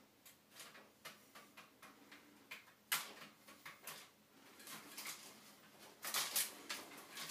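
Horizontal window-blind slats clicking and rattling lightly as a Siamese cat pushes its head between them, with a louder burst of rattling about six seconds in.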